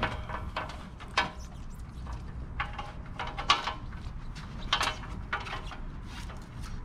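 Handling noise of wiring work: short clicks and rustles, about a dozen spread unevenly, as plastic one-touch wiring connectors are pushed together and a bundle of cable ties is handled over a stainless-steel plate, with a steady low rumble underneath.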